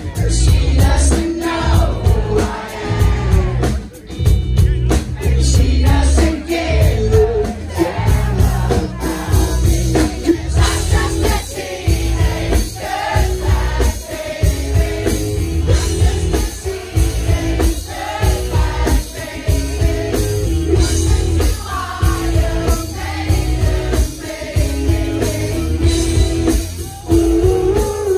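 Live band playing a song, with a singer's voice over drums and heavy bass; the music drops briefly about four seconds in.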